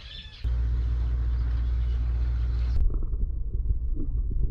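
Muffled underwater camera sound: a steady low water rumble that starts suddenly, then turns duller about two and a half seconds in, with soft irregular knocks.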